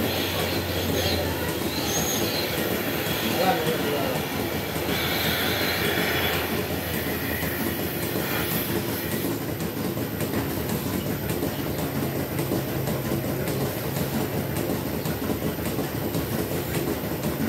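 Dairy milking plant running in the shed, a steady mechanical rumble and hum.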